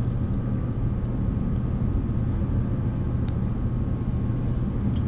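A steady low hum in the background, with a couple of faint light clicks of thin music wire against pliers as it is wrapped around a wire mandrel.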